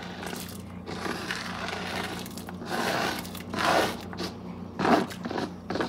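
Diced onion and green pepper being scraped by a gloved hand off a flexible plastic cutting board into a pot of boiling water: soft rustling and scraping, with a few louder scrapes about three to five seconds in, over a steady low hum.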